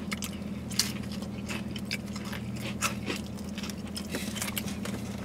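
Close chewing of a bagel sandwich filled with cream cheese and crunchy spicy chips, with many irregular crisp crunches from the chips, over a low steady hum.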